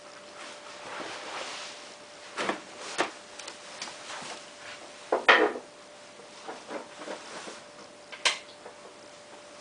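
Scattered knocks, clunks and rubbing from hard objects being handled, the loudest clatter about five seconds in and a sharp knock just after eight seconds, over a faint steady hum.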